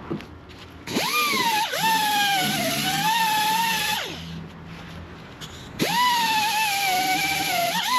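Handheld power grinder notching steel, run in two bursts. It spins up to a steady whine about a second in, its pitch dipping and wavering as it bites, winds down near four seconds, then starts again near six seconds.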